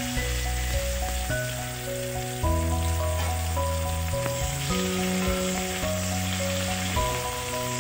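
Hot oil sizzling in a wok as bay leaves and chopped green onion fry and are stirred with a spatula, under background music of slow, sustained notes.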